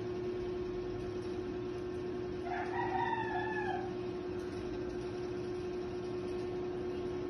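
A single drawn-out animal call of a little over a second, rising and then falling, over a steady electrical hum.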